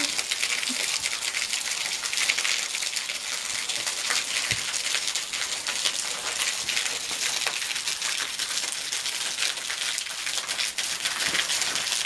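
Small waterfall falling from a sandstone cliff overhang and splashing onto wet stones and gravel at its foot: a steady, high-pitched hiss of spattering water.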